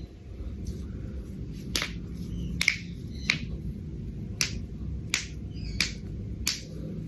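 A series of about seven sharp cracks, one every half second to a second, over a low steady background rumble.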